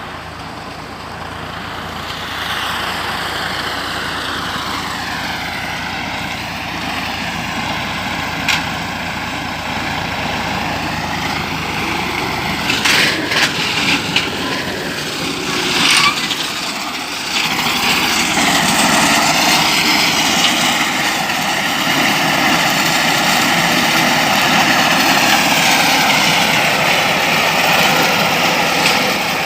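Engine of a grass-mowing machine running steadily while cutting hay. The pitch dips a few seconds in, and the sound grows louder from about halfway through.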